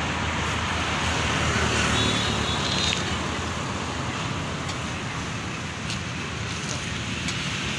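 Steady street traffic noise, with a few faint clicks of a steel ladle against a steel pot as curry is served.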